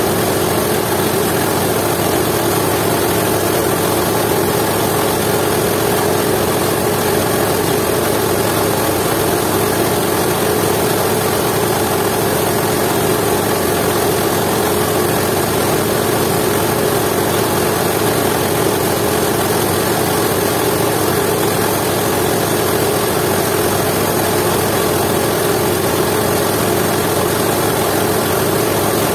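Jiangdong 8 hp single-cylinder diesel engine running steadily at a constant speed, belt-driving a coffee grinder.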